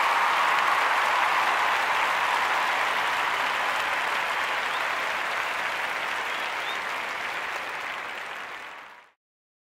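Audience applause, a steady mass of clapping that fades over the last couple of seconds and cuts off about nine seconds in.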